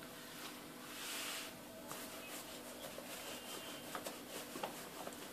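Faint rubbing of börek dough being rolled out thin on a wooden board, with a soft swish about a second in and a few light ticks.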